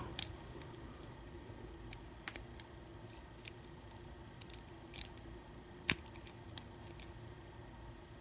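Small, sharp metal clicks of a lock pick working the pin stack of an American 1305 padlock, about a dozen at irregular intervals: pins being lifted and set under tension as the lock nears opening.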